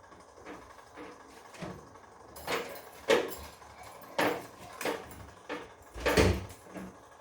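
Bosch front-loading washing machine giving a series of irregular knocks and clunks, about six of them spread over the last five seconds.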